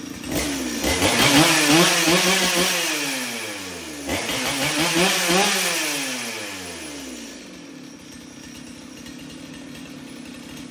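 Jonsered 2077 two-stroke chainsaw, rebuilt with a ported cylinder, revved up twice and each time falling back, then settling into a steady idle.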